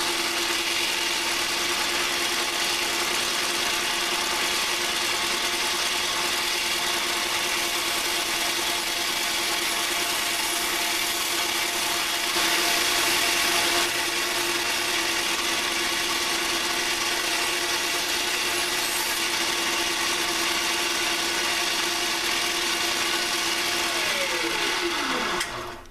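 Belt grinder running with a Scotch-Brite surface-finishing belt, a steady motor hum under a continuous abrasive hiss as the steel blade of a chainsaw-bar knife is worked on the belt. The hiss grows louder for a moment about halfway through, and near the end the grinder is switched off and its hum falls in pitch as it winds down.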